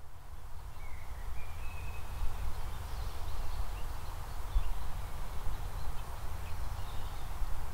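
Outdoor ambience: a few faint, short bird chirps over a steady low rumble and hiss.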